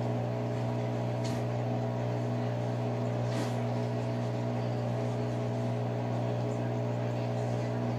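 A steady low machine hum, even in pitch and level, with a couple of faint light taps.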